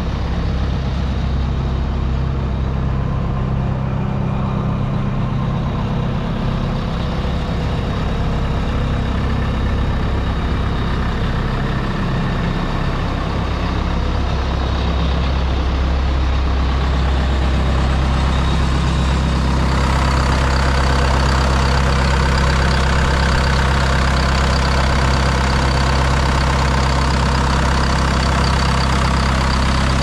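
Engine of a 2009 Vermeer BC1500 towable wood chipper idling steadily, a little louder and brighter from about two-thirds of the way through.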